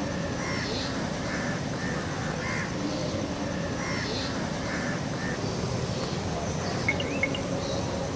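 Birds calling outdoors: short, harsh caw-like calls repeating about once a second, with a few quick high chirps near the end, over steady background noise.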